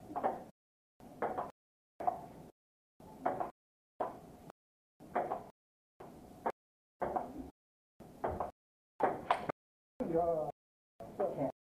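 Table tennis play: the celluloid ball clicking off paddles and the table. It is heard only in half-second snatches about once a second, with the sound cutting out completely in between.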